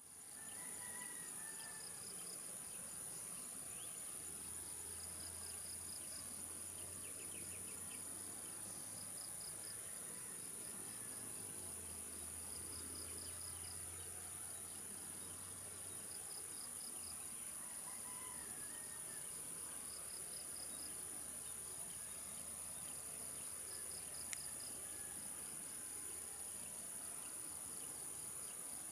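Insects chirping in repeated pulsed trills over a steady high-pitched whine, with a few short bird calls. A faint low hum comes in a few seconds in and fades out past the middle.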